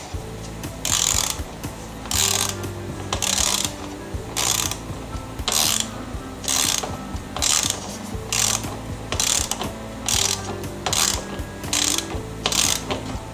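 Socket ratchet wrench worked back and forth, a burst of ratcheting clicks on each stroke, about a dozen strokes at roughly one a second, over a steady low hum.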